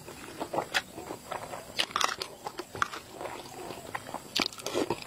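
Close-up chewing of a mouthful of spicy boiled egg, with irregular short wet smacks and clicks from the mouth and a metal spoon scooping from the dish.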